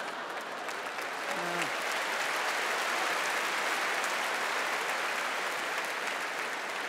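Large audience applauding, the clapping swelling and then slowly easing off, with a brief voice heard about a second and a half in.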